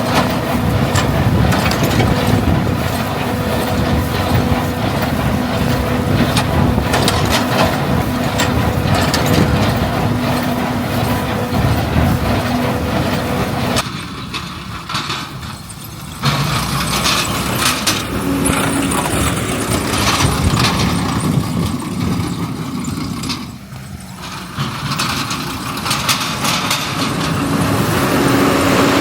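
John Deere 7410 tractor's six-cylinder diesel engine running with an R280 rotary mower, a steady engine hum with rattling clatter over it. The sound drops away briefly about 14 seconds in and again about 24 seconds in, then comes back.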